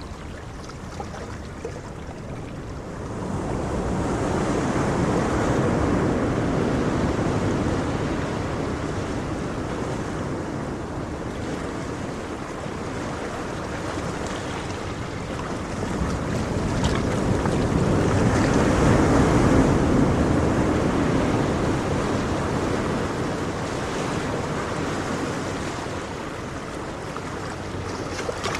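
Ocean waves breaking and washing on the shore, a steady rush of surf that swells twice, about three seconds in and again around the middle.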